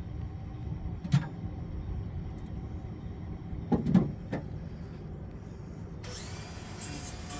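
A sharp knock about a second in and a cluster of three knocks around four seconds, over a steady low rumble, with a hiss coming in near the end.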